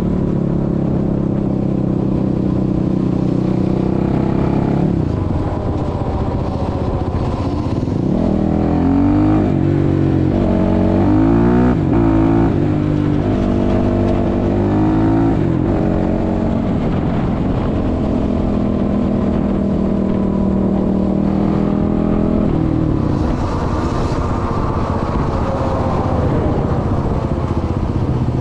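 Suzuki LTR 450 quad's single-cylinder four-stroke engine running steadily while riding, with wind on the microphone. About a quarter of the way in, the engine revs rise and fall several times over some eight seconds, as through gear changes, then settle back to steady cruising.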